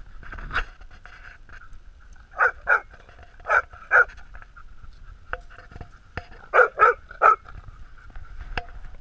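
Dogs barking while playing: short sharp barks, mostly in quick pairs, with a run of three about two-thirds through, roughly nine in all.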